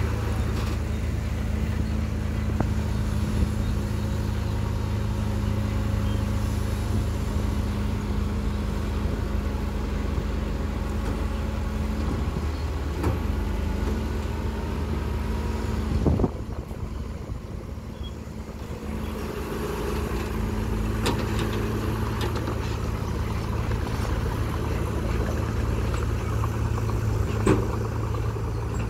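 Diesel engines of a small dump truck and a small crawler bulldozer running steadily as the loaded truck raises its tipper bed and dumps wet soil. A sharp knock about sixteen seconds in, after which the engine noise briefly drops before picking up again.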